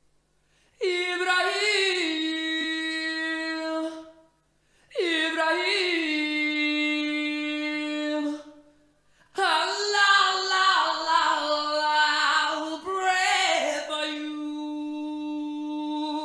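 Music: a singing voice holding long, drawn-out notes in three phrases, with short breaks between them.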